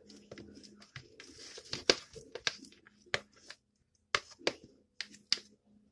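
Knife cutting through baked macaroni and cheese, scraping and clicking against the baking pan: a string of short, sharp clicks and scrapes.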